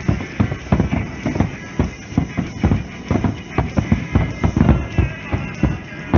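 Dense, irregular booms of a fireworks barrage, several a second, over music played on loudspeakers.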